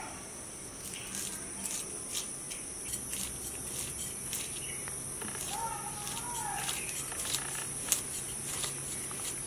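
Steady high-pitched shrilling of insects, with a string of short scraping clicks as a mrigal fish is scaled against the blade of a boti, a fixed fish-cutting blade. A brief pitched call comes about halfway through.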